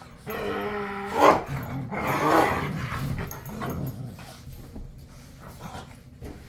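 A Rottweiler growling at another dog to make it back off, in rough play with a real edge. A held growl opens, then two loud snarling outbursts come about a second and two seconds in, before it settles to quieter grumbles.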